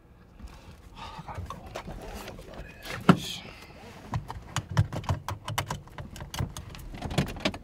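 Small clicks and rustles inside a car, growing more frequent in the second half, with one sharper knock about three seconds in.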